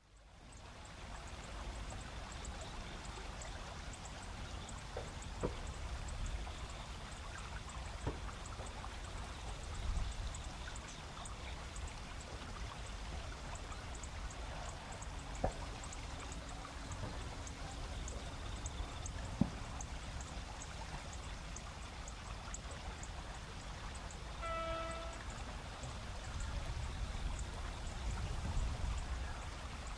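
Steady rush of river rapids with autumn insects chirping in quick high ticks throughout. A few faint knocks and one brief pitched call come in about three-quarters of the way through.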